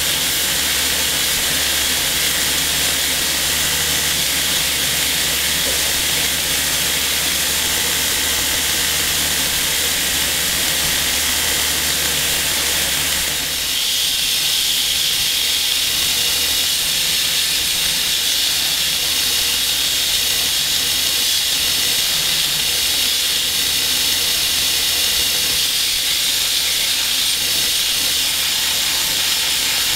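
Belt grinder running on a 120-grit belt with a steel bowie blade pressed against it, a steady loud hissing grind. About halfway through it dips briefly, then comes back with a brighter hiss.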